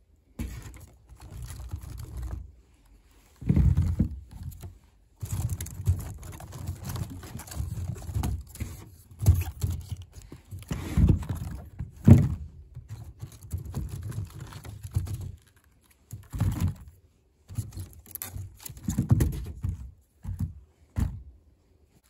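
Irregular rustling, creaking and low thumps as a wicker basket of eggplants is handled close to the microphone, in uneven bursts with short pauses.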